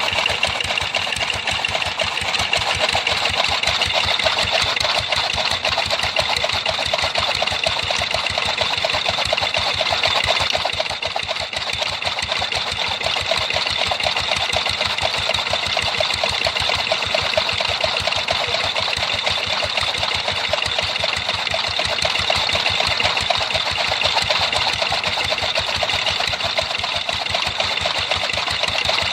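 A machine running steadily with a rapid, even beat, engine-like, with a slight drop in level about ten seconds in.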